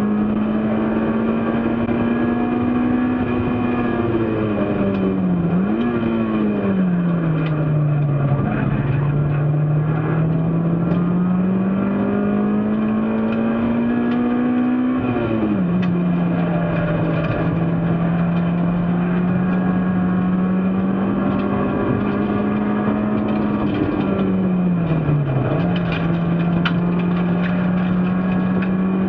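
Race car engine running hard on track, its note climbing slowly at steady high revs, with a few sharp dips and recoveries in pitch where the driver lifts or changes gear.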